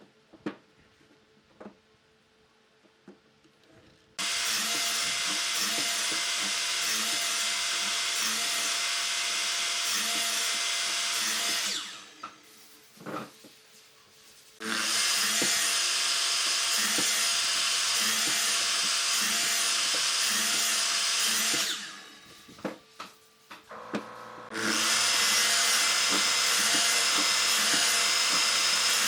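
An electric power tool working wood, running steadily in three long runs of several seconds each. Short pauses between the runs hold a few knocks and clicks.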